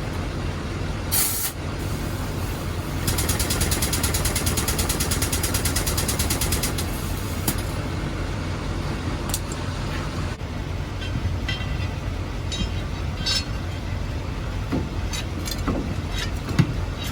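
A truck engine idles steadily under a short air hiss about a second in. Then a pneumatic impact wrench hammers in a fast even rattle for about four and a half seconds, typical of running lug nuts on or off during a flat-tire repair. Scattered clicks and knocks of tools and metal parts follow.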